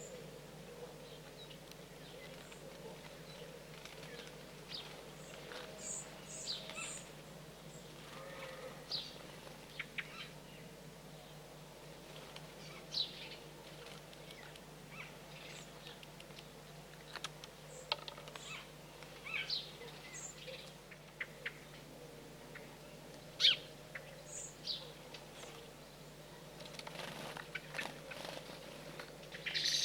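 Small wild birds at a garden feeder: scattered short, high chirps and calls, one here and there, over a faint steady low hum. The sound grows louder and busier near the end.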